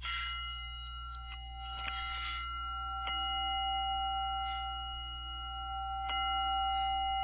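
Starting bells for a silent meditation period: a meditation bell struck three times, about three seconds apart. Each strike rings on in long steady overtones that are still sounding at the next strike.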